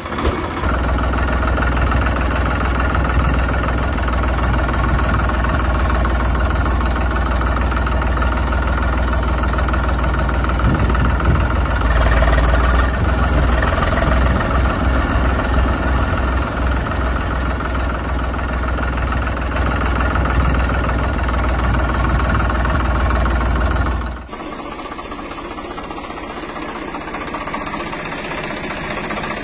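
Tractor engine running steadily with a deep low rumble. About 24 seconds in it cuts suddenly to a quieter, thinner engine sound.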